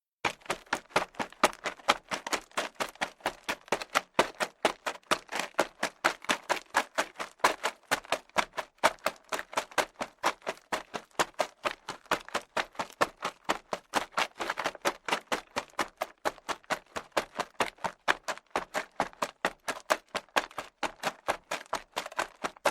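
Rapid footsteps on a hard surface, several quick, even steps a second in a steady run.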